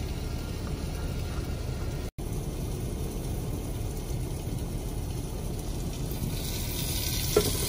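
Halved smoked sausage frying in a deep glass-lidded pan, a soft sizzle that grows louder from about six seconds in, over a steady low rumble.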